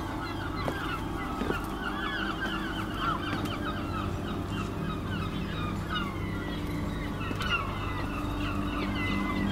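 A flock of birds calling over one another in many short, quick squawks, with a steady low mechanical hum underneath.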